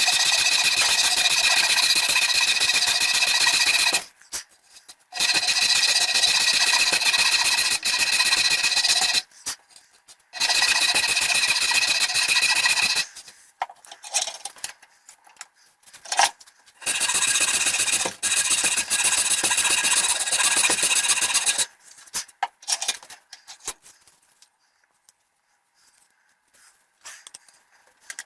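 Power tool with a high whine cutting or sanding wood, run in four long bursts with short pauses between, followed near the end by softer, irregular scraping.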